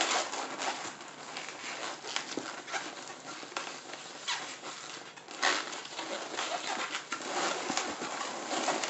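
Latex 260 modelling balloons rubbing and squeaking against each other and against fingers as they are twisted and wrapped, with many short squeaks and scrapes.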